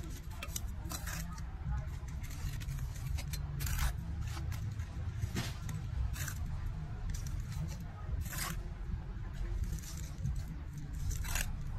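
A small metal garden trowel scraping into sandy soil and tipping it into a plastic flowerpot, in short scrapes and pours every second or few.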